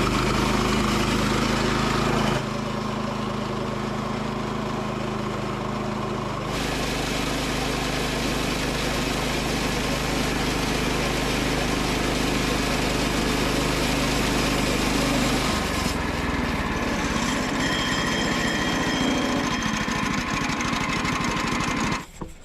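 Gas engine of a Woodland Mills portable bandsaw sawmill running under load as the band blade cuts through a spalted maple log. Its note shifts a few times during the pass, and the sound cuts off sharply near the end.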